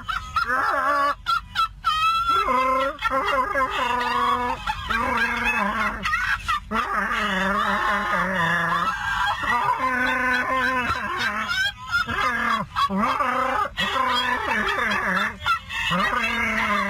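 Electronic Chewbacca mask playing its Wookiee roar over and over as the wearer's mouth moves, mixed with a woman's shrieking, uncontrollable laughter.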